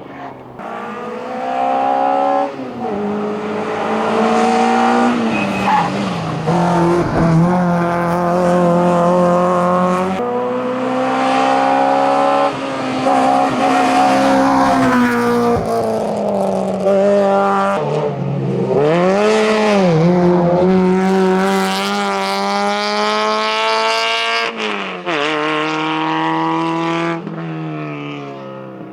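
Hillclimb racing car engines at full throttle, revving high and climbing through the gears, each shift dropping the pitch before it rises again, with a lift-off and pick-up about two-thirds of the way through.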